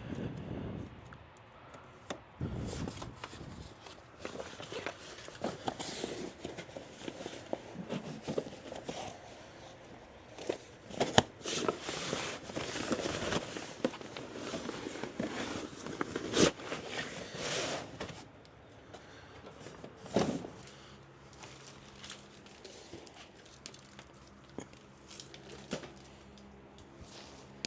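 Hands working on a machine: a run of knocks, clicks and rustling with a few sharp louder clicks, settling about two-thirds of the way in into a low steady hum with only an occasional click.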